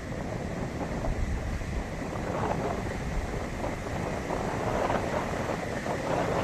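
Arabian Sea surf: waves breaking and washing up the beach, with the wash swelling about two and a half and five seconds in, over wind rumbling on the microphone.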